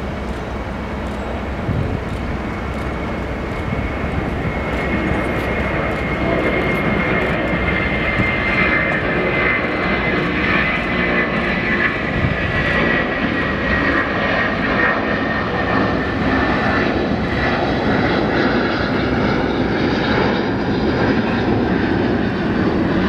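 Airbus A330 freighter's twin jet engines at takeoff power as it climbs out: a steady rushing engine noise with a whine that slowly falls in pitch, growing a little louder in the first several seconds.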